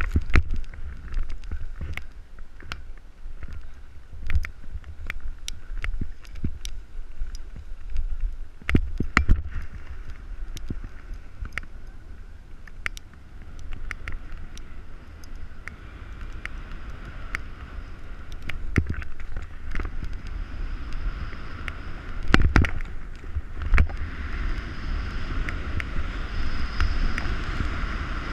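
Snowboard sliding and scraping over packed snow, heard through an action camera's microphone with wind buffeting it, and sharp knocks as the board and camera jolt over bumps, the loudest about nine seconds in and again past twenty-two seconds.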